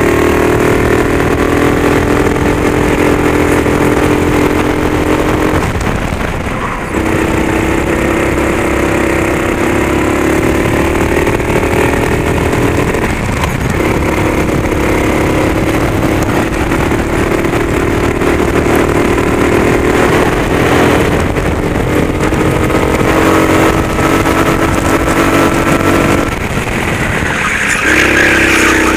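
Racing kart's engine heard from onboard at full throttle. Its pitch climbs slowly along each straight, then falls away sharply four times as the driver lifts for the corners, and picks up again.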